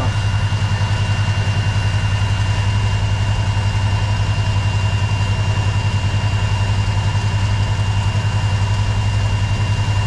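Warn ProVantage electric winch spooling in new synthetic rope with a thin steady high whine, over the Kawasaki Teryx4 800's V-twin engine idling with a steady, quickly pulsing low hum.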